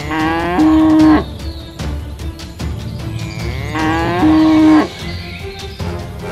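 Two cattle moos from cartoon bulls, about four seconds apart, each sliding down in pitch and then settling into a held low note before cutting off.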